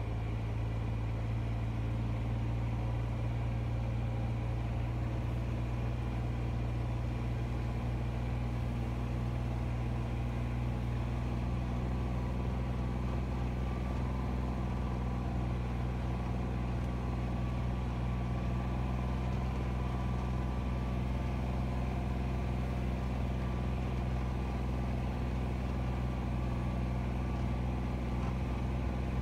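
Engine running steadily: an even, deep drone with little change in level throughout.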